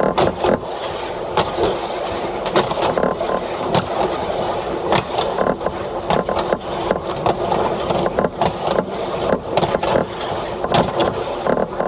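DP-class diesel railcar running along the line: a steady rumble with frequent sharp, irregular clacks and rattles.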